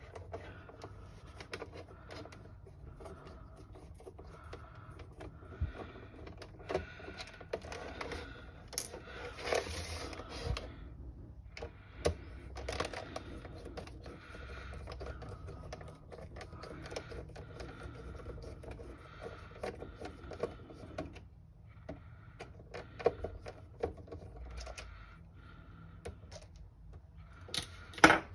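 Faint, irregular clicks and scrapes of a small Torx T8 screwdriver backing screws out of a plastic car instrument cluster housing, with the housing being handled on a steel bench. There is a sharper knock near the end.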